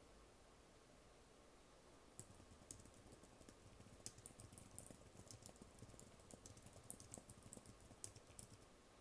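Faint typing on a computer keyboard: a quick, uneven run of key taps that starts about two seconds in and stops just before the end.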